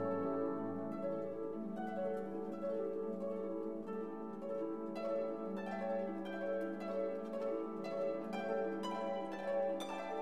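Background music of plucked string notes playing a steady, repeating melody.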